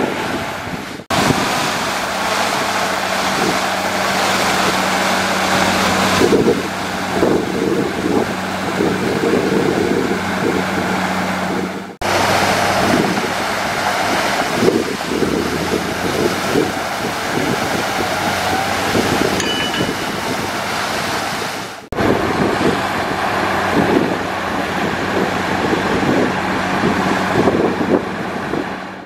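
Heavy diesel earthmoving machinery running steadily under load, with wind buffeting the microphone. The sound breaks off abruptly about a second in, again near 12 s and near 22 s, then carries on.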